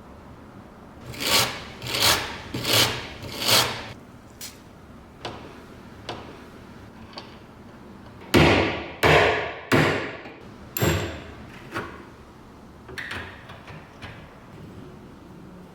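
A series of workshop knocks and strikes: four even strokes about two-thirds of a second apart, then after a pause a louder cluster of four or five hard knocks, trailing off into a few lighter taps.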